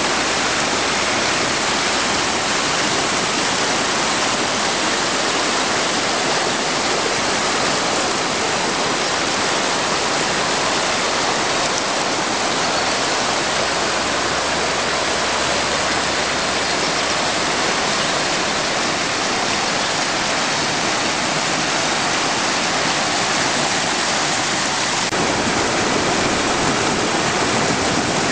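Whitewater of a mountain brook rushing over granite boulders and small cascades, a steady, loud rush of water. About 25 seconds in it grows fuller and deeper.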